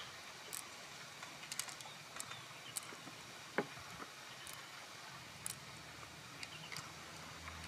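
Faint scattered clicks, ticks and crinkles of plastic-gloved hands picking pearls out of the soft flesh of an opened mussel, with one sharper click about three and a half seconds in.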